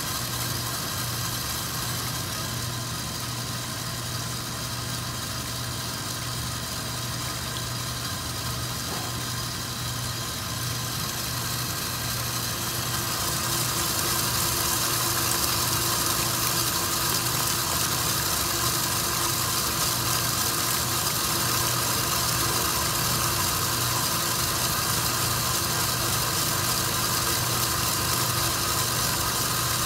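Commercial 8-quart stand mixer running steadily at high speed, its wire whisk whipping egg whites in a stainless steel bowl; a constant motor hum with a whirring hiss, louder from about halfway through.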